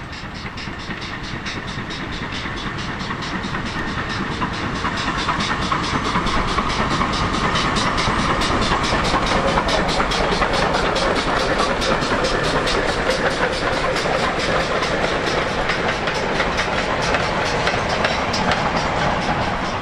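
GWR small prairie 2-6-2 tank steam locomotive passing with a goods train, working hard: its steady exhaust beat grows louder over the first few seconds, then comes the clatter and rumble of the wagons over the rail joints.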